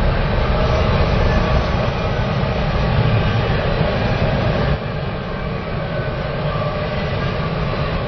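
A Metra commuter train passing close by, a loud steady noise that steps down a little in level just past halfway.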